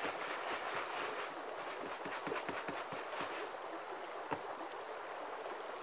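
Gravel and dirt rattling in a hand classifier screen worked over a bucket, in rapid clattering strokes through the middle, with one sharp knock about four seconds in. A creek runs steadily behind.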